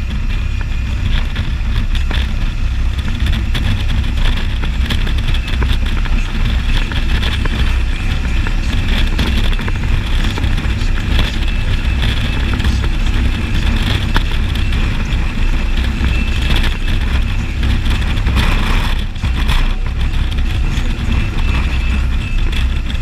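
Can-Am Spyder ST Limited three-wheeled motorcycle's V-twin engine running steadily at road speed, a continuous low rumble with road and air noise over it.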